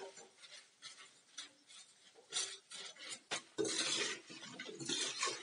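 Perforated steel skimmer scraping and clinking against a stainless steel pan while tossing fried raw banana strips to coat them in spices, in irregular strokes that get busier about two-thirds of the way through.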